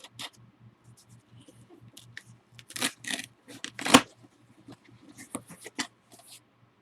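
Packaging being handled while a box is opened: scattered rustles and clicks of cardboard and wrapping, busiest about three seconds in, with one sharp knock about four seconds in.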